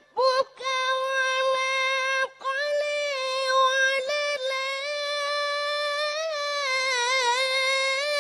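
A boy reciting the Quran in melodic tajweed style, holding long high notes with brief breaks for breath, the line wavering in ornamented turns near the end.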